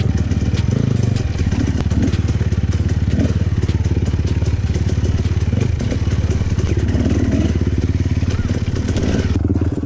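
Enduro dirt bike engine running steadily as the bike is ridden, with a fast, even firing rhythm.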